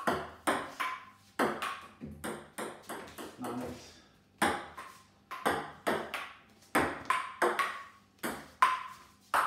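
Table tennis ball in a rally, clicking off paddles and bouncing on a wooden dining table, about two sharp hits a second in an uneven rhythm, some with a brief ring after them.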